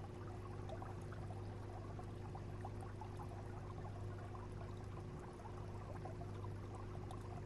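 Aquarium water circulation: water trickling and bubbling over a steady low hum from the tank's pump.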